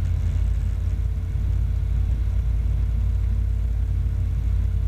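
Steady low drone of an Evektor SportStar's Rotax 912 four-cylinder engine and propeller in flight, heard inside the cockpit, with a faint steady hum above it.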